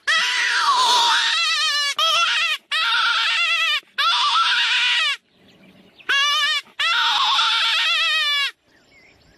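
Jackal howling and yipping in a run of high, quavering wails that wobble quickly in pitch, in bouts of about half a second to a second and a half, with a short lull about five seconds in and another near the end.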